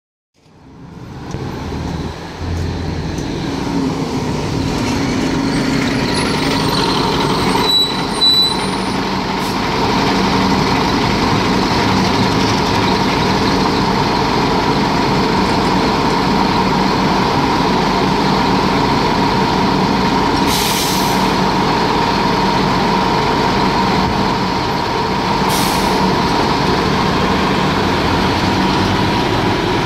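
A 1998 NovaBus RTS city bus with a Detroit Diesel Series 50 engine pulls in and idles at the curb with a steady diesel hum and whine. Twice, at about 20 and 25 seconds in, short bursts of compressed air hiss.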